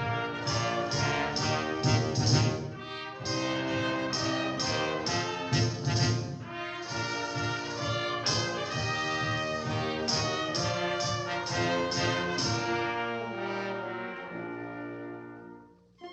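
Brass-led orchestral cartoon title music: trombones and trumpets over the orchestra, punctuated by sharp accented hits about twice a second, fading down near the end.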